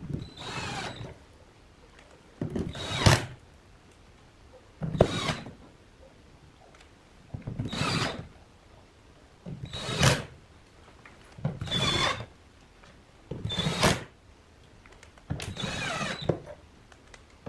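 A cordless drill/driver runs in eight short bursts, about one every two seconds, driving screws into a plastic speaker cabinet's control panel. The motor whine falls in pitch within each burst.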